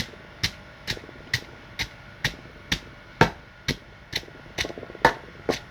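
Pestle pounding fresh ginger, kencur and turmeric rhizomes in a mortar to crush them fine: a steady run of sharp strikes, a little over two a second, evenly spaced.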